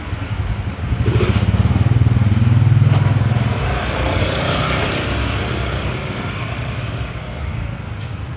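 A motor vehicle passes close by on a street: its engine hum builds to its loudest about two to three seconds in, then gives way to a hiss that slowly fades. A short click comes near the end.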